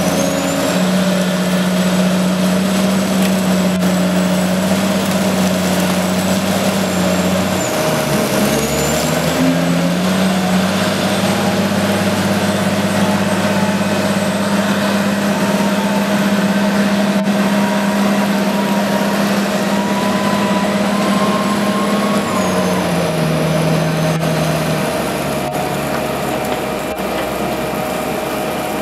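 Caterpillar wheel loader's diesel engine running hard as the machine scoops and carries spoil. The revs dip and climb again about eight seconds in, hold steady, then drop back toward idle in two steps from about twenty-two seconds in, with a high whine following the revs.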